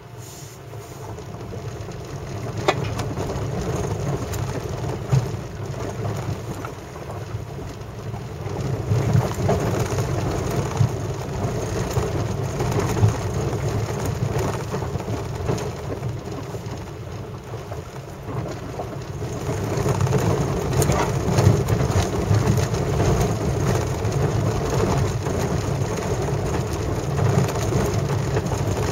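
A car rolling slowly over a rough gravel road, its tyres crunching and crackling on loose stones over a low rumble from the car. The sound gets louder about two seconds in and again past the middle.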